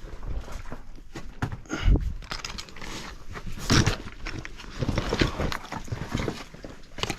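Hiking boots scuffing, sliding and knocking on wet rock while climbing down a rock scramble, in irregular scrapes and thuds; the heaviest thud comes about two seconds in, with another loud scrape near four seconds.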